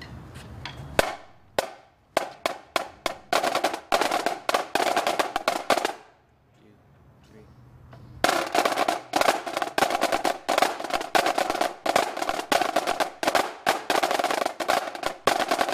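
Several Pearl marching snare drums played together: separate strokes that quicken into dense rolls, a break of about two seconds near the middle, then fast ensemble playing again.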